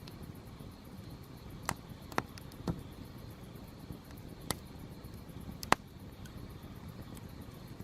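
Wood campfire burning with a steady low rush of flame, and five sharp crackles and pops from the firewood spread over a few seconds; the loudest comes near the end.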